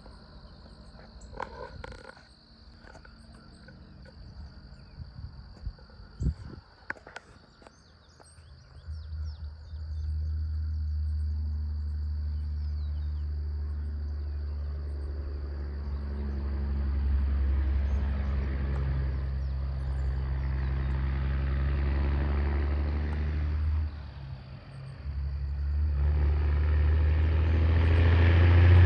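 A steady insect trill at first, then from about nine seconds in a vehicle engine's deep drone that builds as it comes on under heavy throttle. It drops off briefly about three-quarters of the way through, then rises again to its loudest as the vehicle pours out black exhaust smoke.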